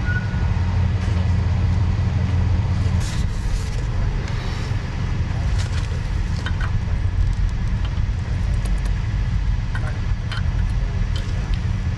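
A motor running with a low, steady rumble, with a few faint light ticks over it.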